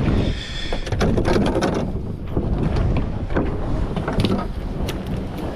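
Wind rushing over the microphone on a small boat at sea, with a run of short irregular knocks and splashes as a hooked fish is lifted thrashing out of the water beside the hull.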